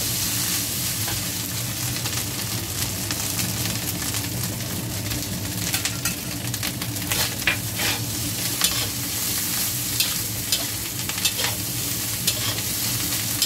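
Fried rice sizzling in a stainless steel wok as a metal spatula stirs and tosses it, with frequent short scrapes and clinks of the spatula against the steel.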